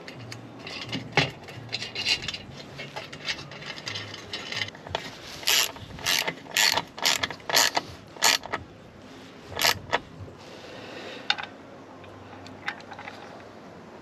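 Hand ratchet clicking in a run of short strokes as a bolt is worked into the steel compressor mounting plate, the strokes loudest and quickest from about five to ten seconds in, then stopping.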